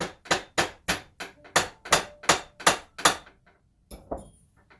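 Snap-on bearing hammer striking a stuck part on a mountain bike frame to drive it loose: about eleven sharp blows in quick succession, roughly three or four a second, then two lighter taps near the end.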